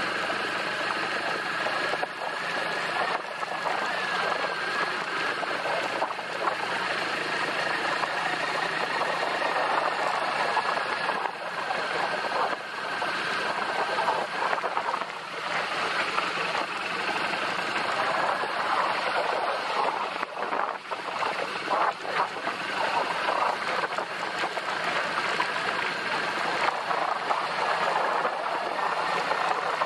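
BMW R1200 GS flat-twin motorcycle being ridden along a rough off-road track: a continuous mix of engine and road noise that rises and falls, with a faint steady whine through the first half.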